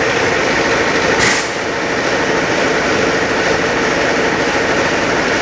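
Powder coating line machinery running with a steady, loud hum and a constant tone, with a short burst of hiss about a second in.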